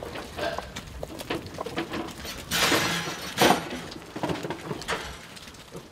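A flock of sheep milling in a yard pen: hooves shuffling and knocking on the ground, with a few short bleats. There is a louder scuffle of movement about two and a half seconds in.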